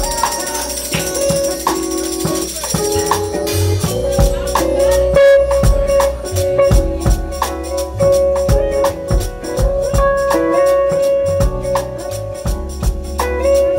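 Live R&B band playing: held notes over a bass line, with a quick, steady percussion beat coming in about three and a half seconds in.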